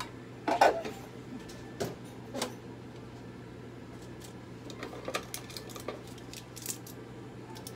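Scattered light clinks and clicks of small hard objects being handled, the loudest just after the start and a quick cluster in the second half, over a steady low hum.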